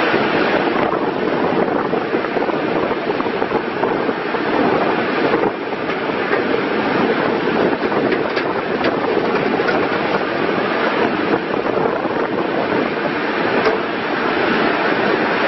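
Komatsu WB156PS-5 backhoe loader running, a steady, loud mechanical noise.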